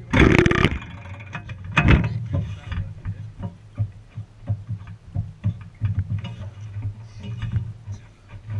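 Small two-stroke strimmer engine on a go kart idling with an uneven ticking beat. A loud burst of noise comes at the start and another about two seconds in.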